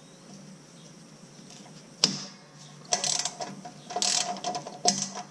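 Socket ratchet wrench clicking as bolts are backed out of the lawn tractor's transmission mounting bracket. One sharp click comes about two seconds in, then short bursts of ratchet clicking from about three seconds in.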